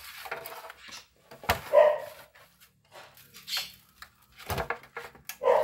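A dog barking twice, over knocks and scraping from a large salted piauçu fish being turned and rubbed in a metal baking tray.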